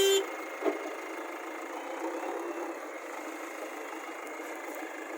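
A vehicle horn ends a short toot right at the start, then steady engine and outdoor background noise with one light knock just under a second in.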